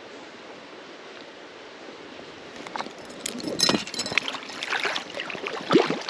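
Creek water running steadily, then irregular splashes and sloshes from about two and a half seconds in as a landing net is lowered into the shallow creek to release a small rainbow trout.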